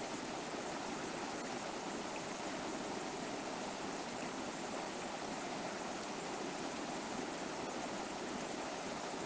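A shallow river flowing over rocks: a steady, unbroken rush of running water.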